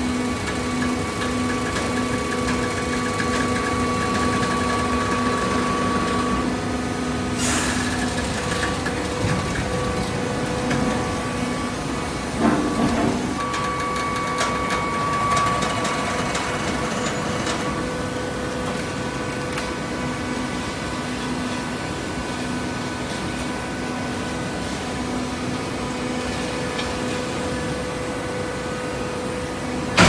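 Automatic horizontal hydraulic baler running: a steady machine hum with several held tones, a sharp knock about seven and a half seconds in and a louder clank around twelve and a half seconds in.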